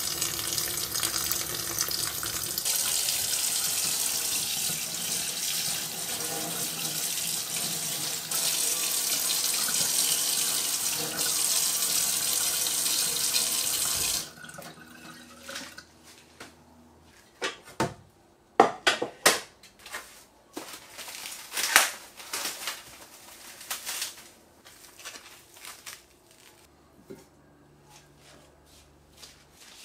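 Kitchen tap running into a sink while a raw chicken carcass is rinsed under the stream, the flow shifting a few times. About halfway through the water stops suddenly, and scattered light knocks and drips follow.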